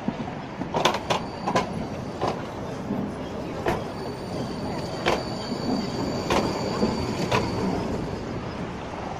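A low-floor tram rolling slowly past close by, its wheels clacking over a track joint about nine times at uneven intervals as each wheelset crosses, over a steady rumble. A faint, high wheel squeal runs through the middle.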